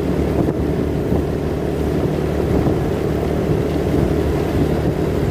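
Motorcycle running steadily while riding on the road, an even engine and road rumble with wind on the microphone.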